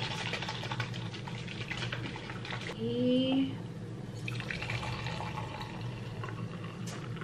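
Chocolate coffee sloshing in a glass jar as it is shaken, then poured from the jar into a mug in a steady liquid pour. A short vocal "ooh" about three seconds in.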